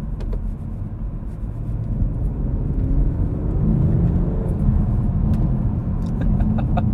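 BMW 440i Gran Coupe's 3-litre B58 turbocharged straight-six heard from inside the cabin while driving, over a steady low road rumble. About halfway through, the engine note climbs in pitch and grows louder as the car accelerates. A run of light ticks comes near the end.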